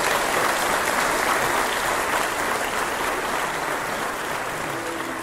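Audience applauding, holding steady and easing off slightly; near the end a bowed string ensemble begins to play.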